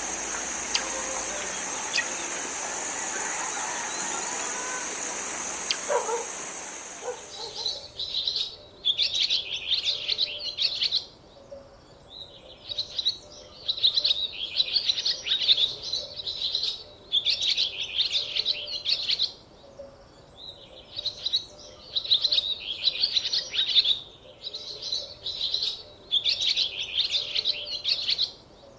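A songbird singing in repeated bouts of rapid twittering, each a second or two long, with short pauses between. For the first several seconds, before the song starts, there is a steady rushing hiss with a high whine, which cuts off abruptly.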